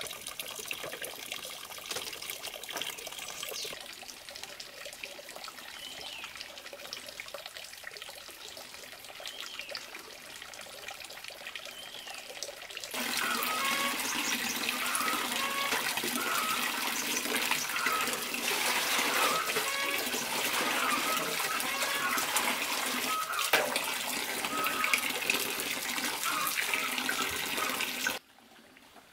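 Running water: a quieter trickle at first, then from about halfway a louder, steady pour of water from a pipe spout splashing into a metal basin, with gurgling. It cuts off suddenly near the end.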